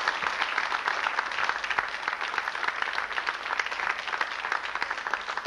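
Audience applauding: many hands clapping at once, a dense, steady clatter that holds at an even level.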